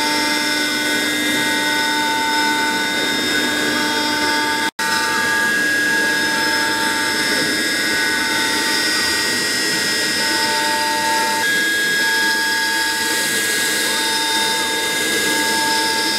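AXYZ 4010 CNC router spindle running and routing a fibreboard sheet, with the vacuum running alongside: a steady machine whine with several high tones, one of which comes and goes every second or two. The sound drops out for an instant about five seconds in.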